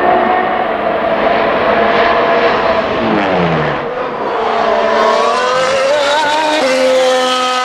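Mercedes-AMG F1 W08's 1.6-litre turbocharged V6 hybrid engine running at high revs. Its pitch falls about three seconds in, then climbs as the car accelerates out of a corner, with a sudden drop at an upshift near the end.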